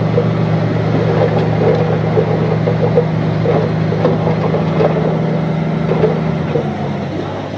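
Heavy machine's engine running steadily, with scattered light clanks; near the end the engine slows and its note drops.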